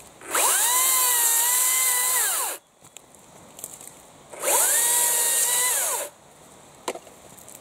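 Makita 36 V (twin 18 V) brushless battery chainsaw run in two bursts of about two seconds each as it cuts through fallen branches. Each burst rises quickly to a steady high whine, then winds down as the motor coasts to a stop. A small snap follows near the end.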